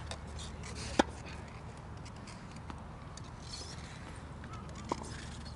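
Tennis ball being struck during a rally: a sharp, loud pop about a second in and a fainter one near the end, over a steady low outdoor hum.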